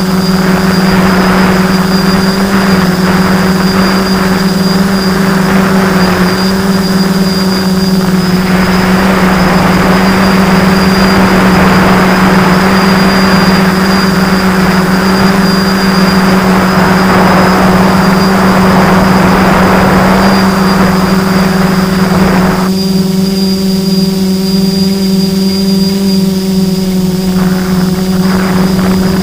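An FPV drone's electric motors and propellers whining steadily, heard close from its onboard camera, under a rush of air over the microphone. About three-quarters of the way through the rushing drops away and the motor whine stands out clearly for a few seconds, before the rush partly returns near the end.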